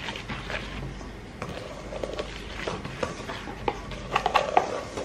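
Wooden spoon stirring butter and sugar in a stainless steel mixing bowl: soft scraping with irregular clicks and knocks against the bowl, busier and louder about four seconds in.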